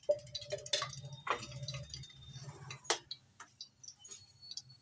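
A metal spoon clinking and tapping against a container and the kadhai as ghee is spooned into the pan: a few sharp clicks with brief metallic ringing, over a low steady hum.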